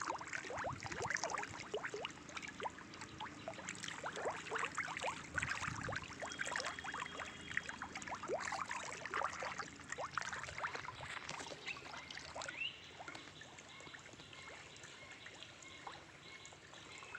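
Water splashing and dripping as fish churn the surface of a lined fish pond: many small, quick splashes for about twelve seconds, then thinning out to sparse ones.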